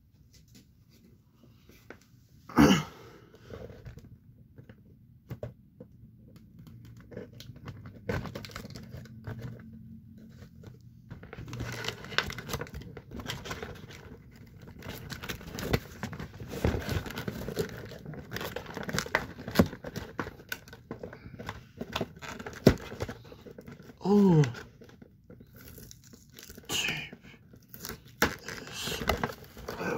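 Cardboard toy box being opened by hand: cardboard and plastic packaging tearing and crinkling, irregular and busier from about a third of the way in, with a few louder sharp sounds.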